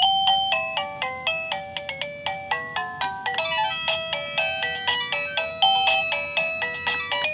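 Liztek wireless doorbell receiver playing one of its built-in ringtones: a simple electronic tune of short chime-like notes, each striking and fading, about three a second.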